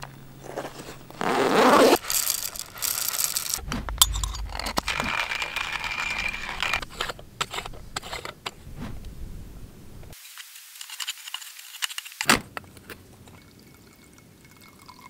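A series of short clips of metal camp-coffee gear being handled: clinks and scrapes of an aluminium moka pot and a metal stove on rock, with the background changing abruptly between clips.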